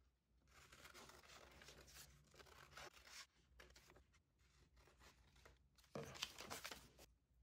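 Scissors snipping through a paper pattern sheet with faint paper rustling, and a louder rustle of the paper sheets being handled about six seconds in.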